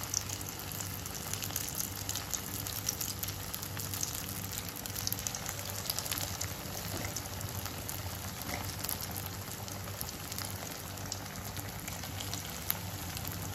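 Potato pakoras deep-frying in hot oil: a steady sizzle with many small crackling pops. A low steady hum runs beneath it.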